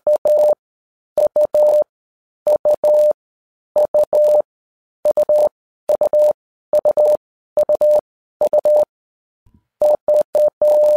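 Morse code sent as a single steady beep tone, keyed into short dits and longer dahs in rapid groups about two-thirds of a second apart, with one longer pause near the end.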